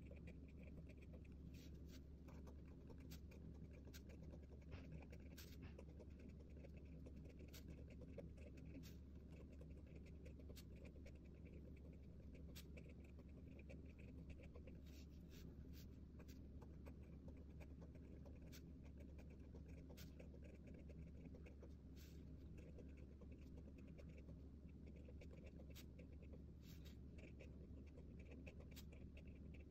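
Faint, quick scratching of a Pigma Micron fineliner pen writing by hand on notebook paper, short stroke after stroke, over a steady low hum.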